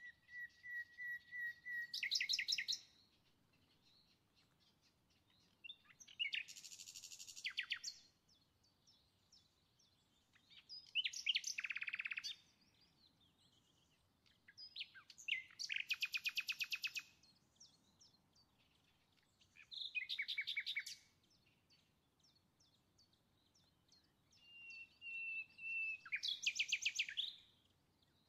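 A songbird singing six short phrases of rapid trills, one about every four to five seconds, two of them opening with a held whistle.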